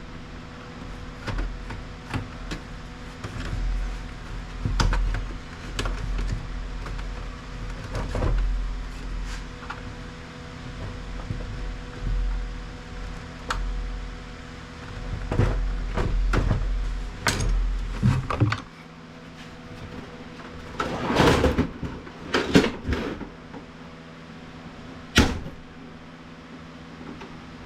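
Plastic printer casing being pried apart and handled: a run of scattered clicks, knocks and plastic rattles, busiest and loudest about three quarters of the way through, over a steady low hum.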